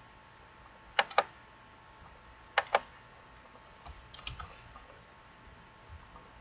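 Clicks on a computer keyboard and mouse, as in copying and pasting text: two quick pairs of sharp clicks, then a short run of softer clicks.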